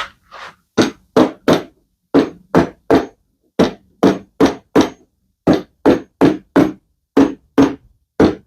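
Hammer blows on a scrap wood block, driving a mortise-and-tenon frame-and-panel assembly together during a dry fit. About twenty sharp knocks come in quick groups of three or four with short pauses between the groups.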